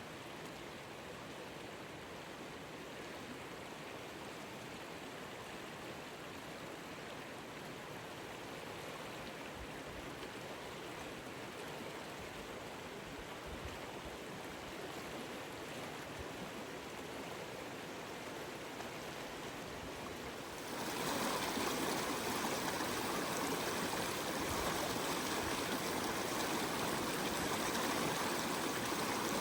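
River water flowing, a steady rushing sound. About twenty seconds in it suddenly turns louder and fuller.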